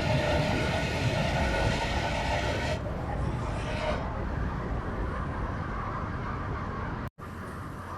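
2018 Subaru WRX STI's EJ257 turbocharged flat-four engine and exhaust running with a steady note. The note falls away about three seconds in, leaving a duller low rumble, and the sound cuts out for an instant near the end.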